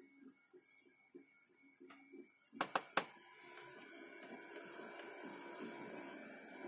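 CR-10 3D printer at work: its stepper motors pulse rhythmically, about four pulses a second, over steady high tones. About two and a half seconds in come three sharp clicks, then a louder, steady whirring hum of the printer's motors and fans.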